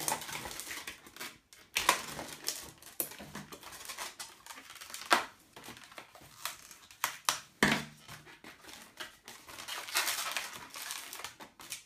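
Inflated latex modelling balloon (a 160 twisting balloon) squeaking and rubbing under the hands as it is twisted and bent into shape, with a few sharp clicks.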